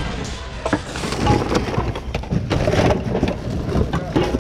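Hands rummaging through a bin of mixed secondhand goods, hard items knocking and clattering against each other in quick, irregular knocks.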